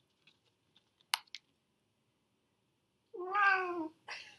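A house cat meowing once, a single drawn-out meow that slides slightly down in pitch, about three seconds in, heard through a video call. A few faint clicks come about a second in.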